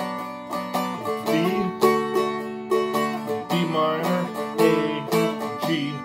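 Seagull Merlin M4 being strummed in a steady rhythm, a few strokes a second, with its chords ringing on: the B minor to A to G chorus progression of a simple strumming arrangement.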